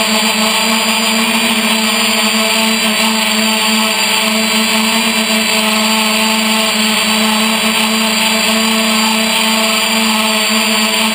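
3DR Iris+ quadcopter's four electric motors and propellers running in flight, picked up by the camera on board: a loud, steady whine whose pitch wavers slightly as the drone holds and shifts its position.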